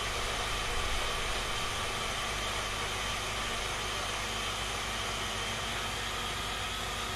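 Electric hand blender's chopper attachment running steadily, its blade grinding raw almonds, bread and garlic into a paste; a steady motor whine over a grainy hiss.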